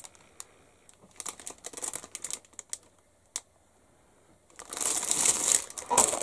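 Plastic model-kit sprues clicking and tapping against each other as they are handled. About four and a half seconds in, this gives way to a dense crinkling of plastic bagging.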